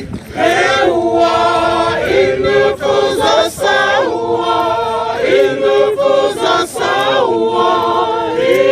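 A group of Naga women singing a traditional song together, unaccompanied, in held phrases with short breaks between them.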